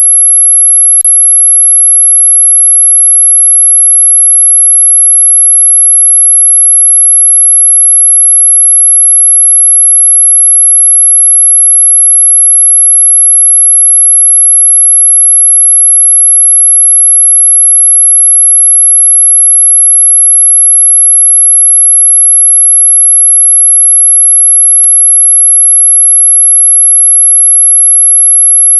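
A single steady, very high-pitched electronic sine tone, held loud and unbroken. It is played as an anti-mosquito repellent sound, though it sits within hearing range rather than truly ultrasonic.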